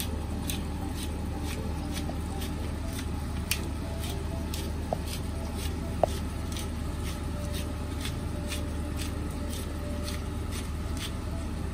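Thick coconut-milk sauce simmering around a pomfret in a non-stick frying pan, with irregular small pops and crackles as it comes to the boil, over a steady low hum.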